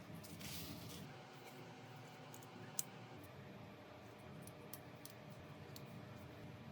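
Faint clicks and taps of small tools and parts during work on a smartphone, with a brief scraping rustle about half a second in and one sharp click just under three seconds in.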